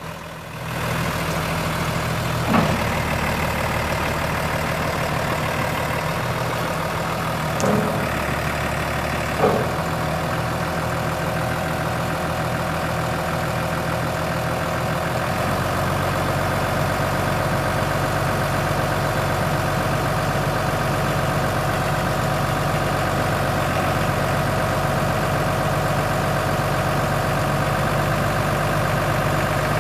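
New Holland T6050 tractor's six-cylinder diesel engine idling steadily, with a few short clunks in the first third. The low engine note shifts slightly about halfway through.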